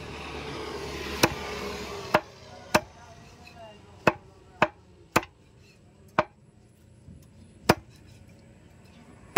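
Heavy butcher's knife chopping raw broiler chicken on a wooden stump chopping block: about eight sharp chops, irregularly spaced from half a second to a second and a half apart.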